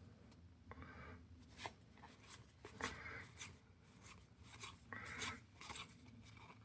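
Faint sliding and rubbing of Pokémon trading cards being moved one by one through a freshly opened booster pack, a short scrape every second or so.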